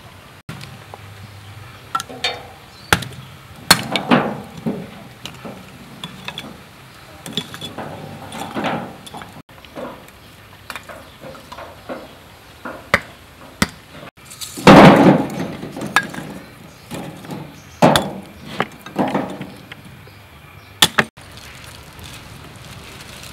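Lumps of charcoal and wood knocking and clinking against a steel barrel grill as it is loaded with fuel, in irregular single knocks. A longer, louder clatter comes a little past the middle.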